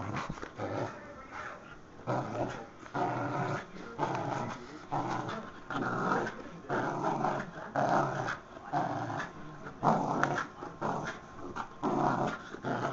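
Small dog growling in about a dozen short, rough bursts, roughly one a second.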